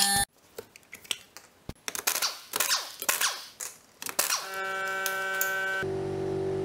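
Power impact wrench on a car's wheel bolts: about four seconds of clicks and rattling, then the wrench running steadily, its pitch stepping once near the end. A brief steady run at the very start.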